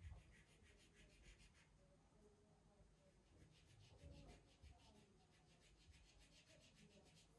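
Faint, rapid back-and-forth strokes of a marker tip rubbing on wallpaper as it colours in, several strokes a second.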